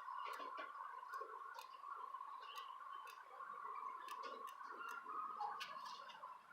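Bicycle wheel being spun slowly for truing, giving faint, irregular light ticks and clicks over a steady faint high-pitched hum.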